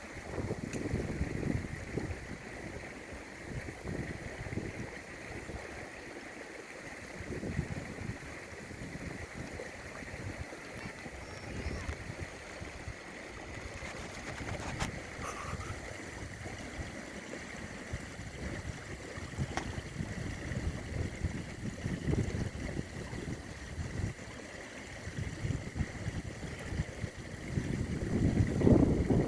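Strong gusty wind buffeting the microphone in irregular low rumbles over the steady rush of a river. The gusts grow stronger near the end.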